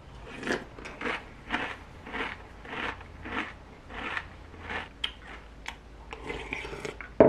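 Crunchy flake cereal in milk being chewed, in a steady rhythm of just under two crunches a second. A sharp knock comes near the end.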